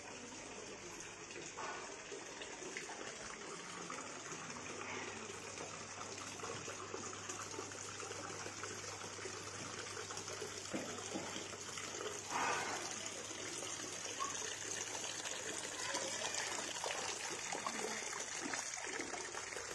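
Water from a small decorative waterfall trickling steadily over model rocks.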